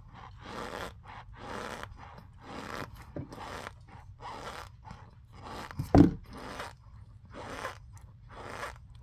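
Crunchy chewing of a chunk of pressed powdered starch, at about two chews a second, with one sharp, loud crunch about six seconds in.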